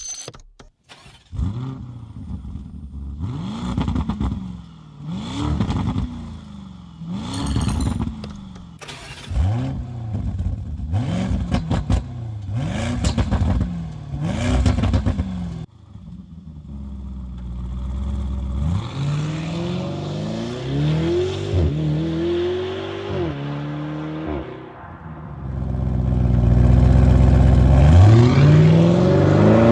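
Lamborghini Urus twin-turbo V8 being revved with the car standing: about eight sharp throttle blips, one every second and a half to two seconds. Then the engine accelerates with its pitch rising in steps as the gears change, and it is loudest near the end.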